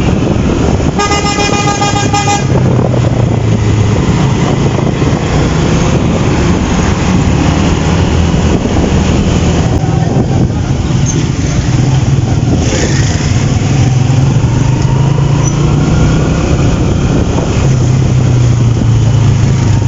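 A vehicle engine running in street traffic, its drone shifting in pitch now and then, with a vehicle horn honking for about a second and a half about a second in.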